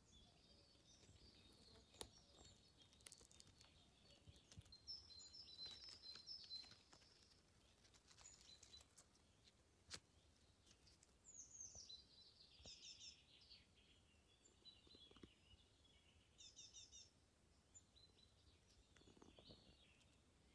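Faint birdsong in near silence: small birds chirping and giving short trills on and off, with a couple of sharp clicks.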